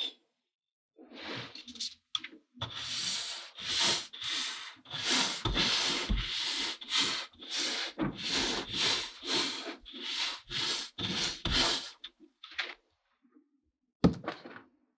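Kinetic sand crunching as a wooden pestle presses and packs it, a quick run of gritty crunches about two or three a second. Near the end one sharp knock as a plastic mold is set down on the table.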